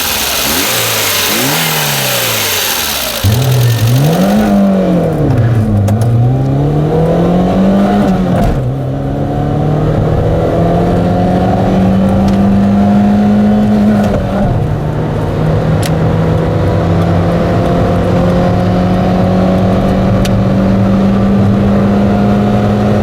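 Peugeot 106's small 1.0-litre four-cylinder petrol engine revving up and down several times over the first eight seconds. It then pulls steadily with its pitch climbing slowly, with a brief drop in revs about two-thirds of the way through.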